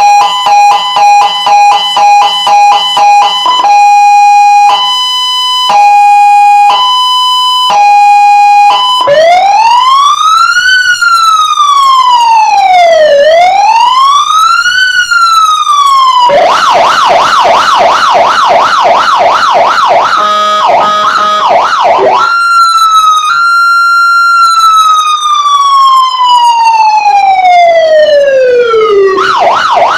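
Electronic emergency siren sounding through its horn speaker and switching between its tones: a rapid pulsed beep, then a hi-lo two-note alternation, then a slow rising and falling wail. About halfway through it changes to a fast warbling yelp, then to other pulsed patterns, and near the end to one long falling tone.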